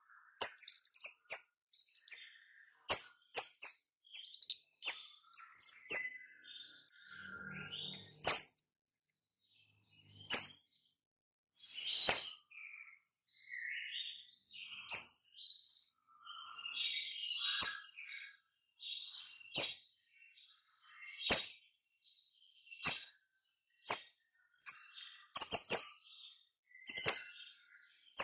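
A caged kemade songbird giving short, sharp, high chirps every second or two, in quicker runs near the start and near the end, with softer twittering in between: the rapid 'shooting' (nembak) call that bird keepers play as a lure to get other kemade singing.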